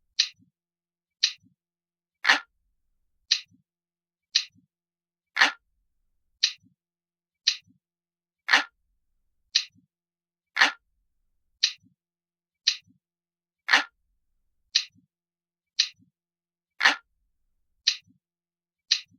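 Ticking clock sound effect, one sharp tick about every second, with some ticks higher and some fuller and lower.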